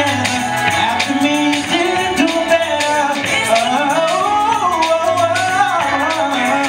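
Music: a man singing into a handheld microphone over a beat with a bass line.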